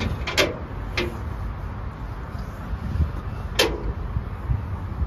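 A few sharp clicks and knocks, the loudest a clank about three and a half seconds in, over a steady low rumble.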